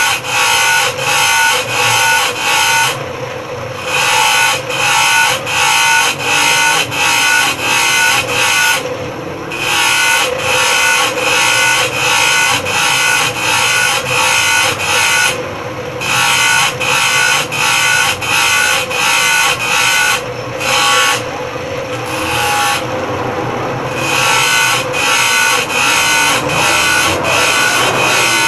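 Bench grinder cutting saw teeth into a metal blade: the blade is pressed against the spinning wheel in short grinding strokes about twice a second, with the grinder motor running on between them and in a few brief pauses.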